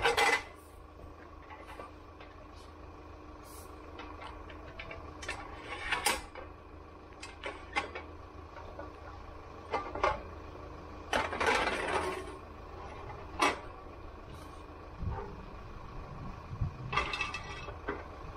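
Steel wheel-lift side rails knocking and scraping on the tarmac as they are set under a car's rear wheel: a run of irregular clanks with a couple of longer scrapes. An engine hums steadily underneath.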